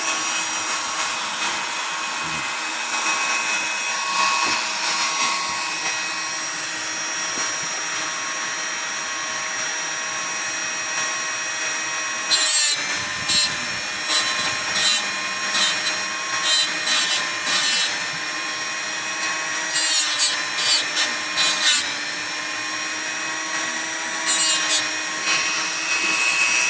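Dremel rotary tool running at a steady whine while enlarging a hole in a typewriter's paper bail detent piece. From about halfway in, the bit bites in repeated short, loud grinding bursts.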